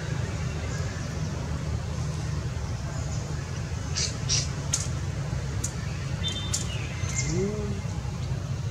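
Steady low rumble with a few short, high bird chirps about four seconds in and again a couple of seconds later.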